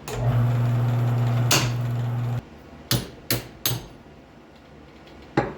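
A steady electric-motor hum that cuts off abruptly a little over two seconds in, followed by four sharp knocks, struck like hammer blows.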